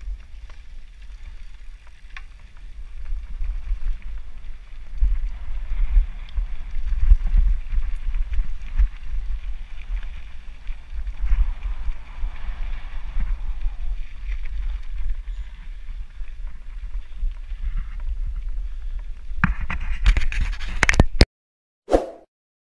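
Mountain bike riding down a rough dirt trail, heard through an action camera: a constant jolting rumble of wind buffeting and frame and trail shake, with scattered knocks and rattles. It cuts off abruptly near the end, followed by one short sound effect.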